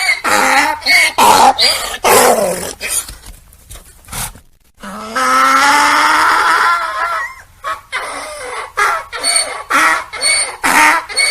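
Donkey braying: quick, rhythmic hee-haw pulses, a brief break about four seconds in, then one long drawn-out call, followed by more quick pulses.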